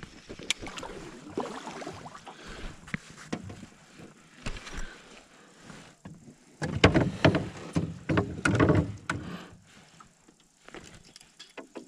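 Knocks, clunks and rattles of fishing gear being handled in a small boat, with the loudest run of heavy thumps and clatter about seven to nine seconds in.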